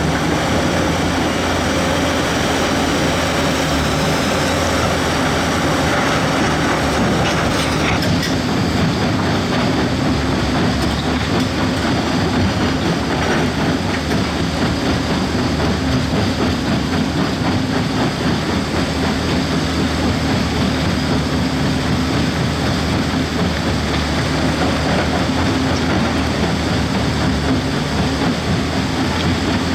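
Heavy earthmoving machine's diesel engine running steadily, a constant low hum with no pauses.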